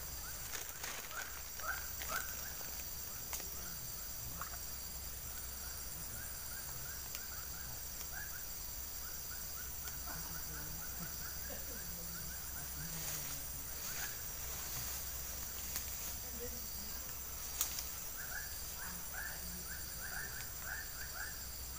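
A steady, high-pitched insect chorus, with runs of quick, short chirps now and then and a few sharp clicks.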